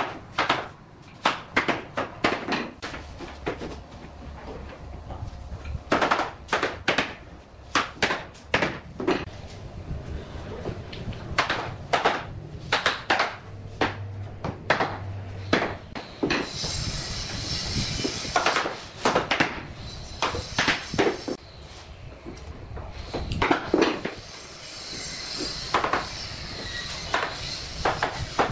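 Hammer knocking on the edges of bamboo floor planks to drive the tongue-and-groove joints tight, a series of sharp knocks in irregular clusters. Stretches of rustling come in twice, about halfway through and near the end.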